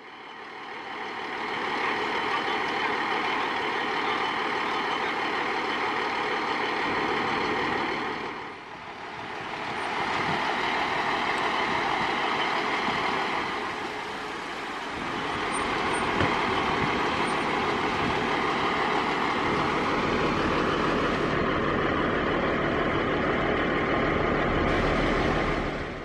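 Fire engine's diesel engine running steadily at idle, close by. The sound dips briefly twice along the way and then stops abruptly.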